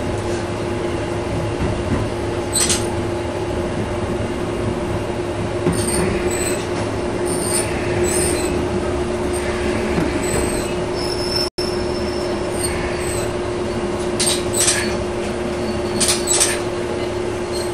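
Diesel railcar running along the track, heard from the driver's cab: a steady engine drone with wheel and rail rumble. A few brief high-pitched wheel squeals come through, most of them near the end, and the sound cuts out for an instant about two-thirds of the way through.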